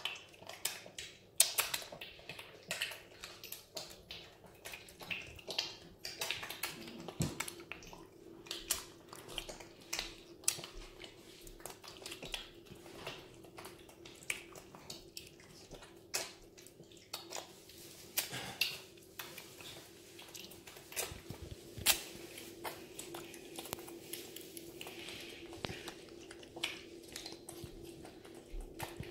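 A piglet eating applesauce from a shallow ceramic bowl: irregular wet smacking and slurping, with sharper clicks of its snout against the bowl. A faint steady hum runs underneath.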